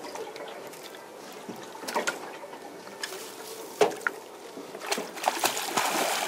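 Water sloshing against a boat hull as a landing net is worked alongside, with a few knocks and one sharp knock about four seconds in. Splashing builds near the end as a hooked salmon thrashes at the surface in the net.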